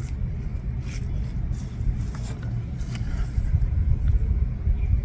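Steady low background rumble with a few faint light clicks, typical of small plastic steering-column parts being handled.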